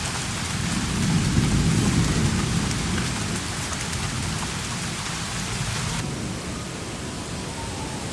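Steady heavy rain with a low rumble of thunder that swells about a second in and slowly dies away; the hiss of the rain softens a little near the end.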